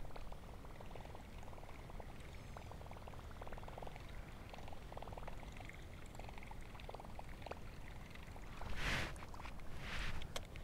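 A Whopper Plopper topwater lure being reeled across a stream, its spinning tail churning the surface, with a faint, fast clicking from the reel's crank. Two short, louder rushes of noise come about nine and ten seconds in.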